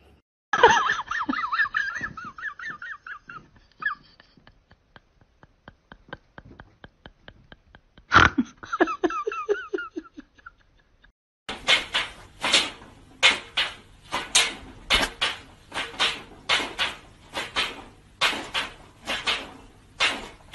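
Domestic cats calling. A wavering, warbling call runs for about three seconds near the start, and another comes about eight seconds in. From about eleven seconds in there is a long run of short, sharp calls, about two a second.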